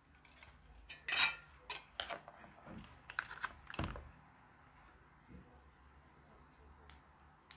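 Irregular clicks, taps and short scrapes of small metal and plastic parts being handled on a disassembled mini USB fan, with a couple of sharp clicks near the end.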